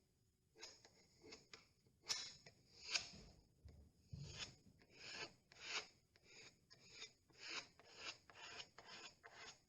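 Filling knife spreading and scraping freshly mixed two-part filler over an MDF repair, in repeated short scraping strokes, irregular, roughly one every half second.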